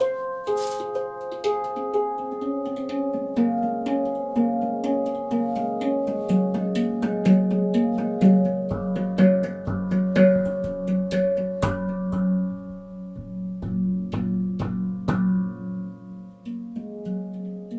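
Manik handpan tuned to the F#2 Nordlys scale, played with the fingers: a quick run of struck notes, each ringing on, with a low note sounding under them through the middle. The strikes thin out and grow quieter near the end.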